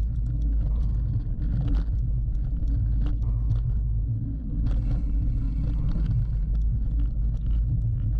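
Steady wind rumble and trail noise from a Look 986 mountain bike ridden hard off-road, with frequent clicks and rattles from the bike.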